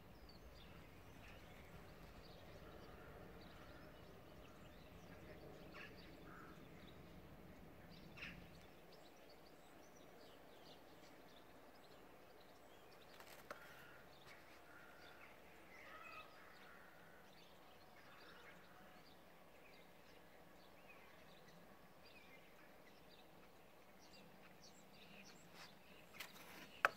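Near silence: quiet outdoor ambience with faint, scattered bird chirps, a low rumble that stops about nine seconds in, and a single sharp click at the very end.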